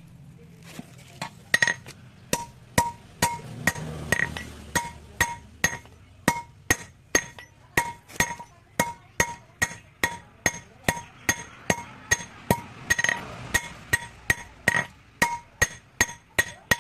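Blacksmith's hammer striking steel on an anvil in a steady rhythm of about two to three blows a second, each blow ringing, as a hasua sickle blade is shaped.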